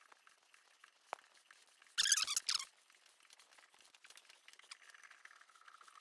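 Hand die in a die stock cutting 5/16-24 fine threads on a steel rod held in a bench vise: faint little clicking as the steel chips curl and break, one sharp click about a second in and a short louder rasp about two seconds in. Near the end a light whir as the die stock is spun on the thread.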